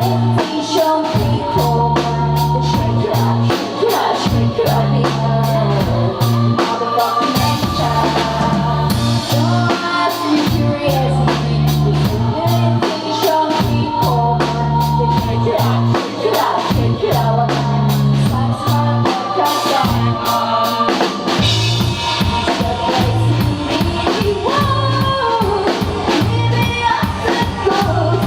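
Live band music: a drum kit keeping a steady beat under a repeating bass line, with vocals on top. About three quarters of the way through, the bass figure changes to shorter, choppier notes.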